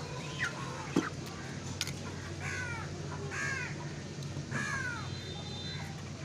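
A crow cawing three times, about a second apart, each caw harsh and falling in pitch. A sharp knock comes about a second in.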